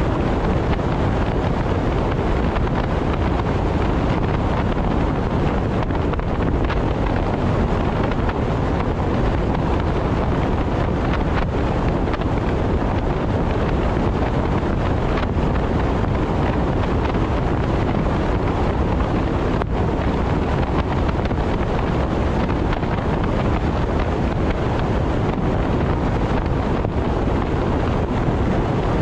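Steady rush of wind and road noise from a car travelling at expressway speed, with no engine note standing out and no breaks.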